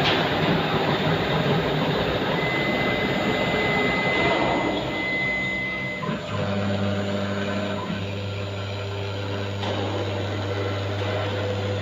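Single-spindle CNC router running. A rough, noisy machining sound, with a steady high whine joining about two seconds in, gives way about six seconds in to a steady low hum.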